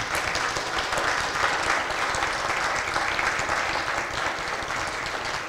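Audience applauding: dense, steady clapping from many hands, tapering off near the end.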